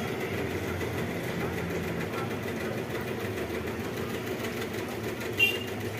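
A steady low mechanical hum, like a motor running in the background, with a brief higher-pitched sound about five seconds in.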